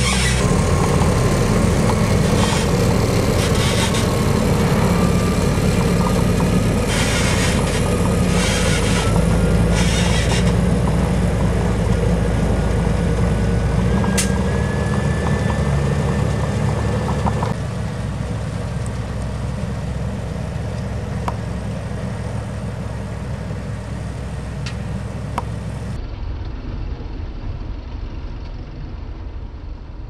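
Tractor diesel engines running steadily with a Grimme GZ 1700 potato harvester at work, its conveyors and elevator rattling with a thin steady whine as potatoes are lifted and dropped into the dumper.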